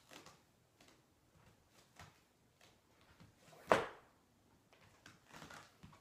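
Faint taps and shuffles of sneakers and hands on a yoga mat during a plank with leg raises, with one sharp, much louder hit a little past halfway and a brief rustling near the end.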